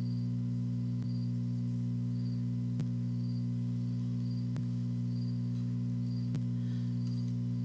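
Steady low electrical hum, with a faint high chirp repeating about once a second and a soft tick about every two seconds.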